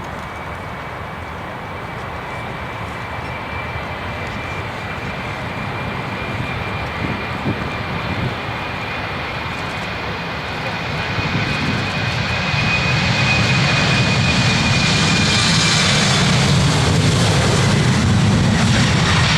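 Airliner engines growing louder as the plane comes close, a steady high whine over a rumble. The whine fades out about two-thirds of the way through while the low rumble and hiss keep building.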